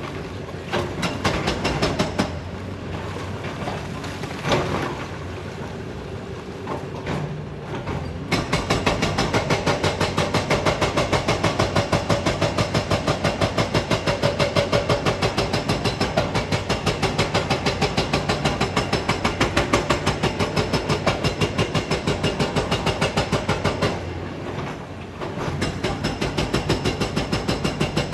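Kobelco excavator's hydraulic rock breaker hammering rock. For the first eight seconds or so the engine runs with scattered knocks; then a rapid, even hammering sets in, stops briefly about 24 seconds in, and starts again near the end.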